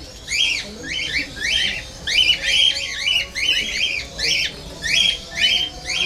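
A flock of cockatiels calling: short, high, shrill calls repeated in quick clusters, several a second, with no break.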